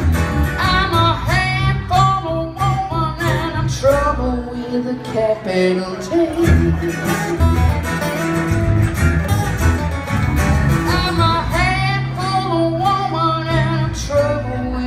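Live country-blues song: a woman sings lead over strummed acoustic guitars and a bass guitar.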